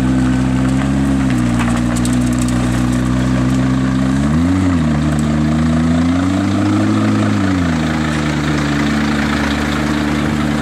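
McLaren P1's twin-turbo 3.8-litre V8 running at low revs as the car creeps forward, with a quick throttle blip about four and a half seconds in and a slower rise and fall in revs a couple of seconds later.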